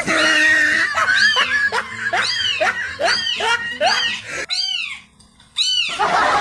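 Recorded kitten meows played from a phone speaker: a rapid run of high-pitched, identical cries, about three a second, pausing briefly near the end before a short burst of noise.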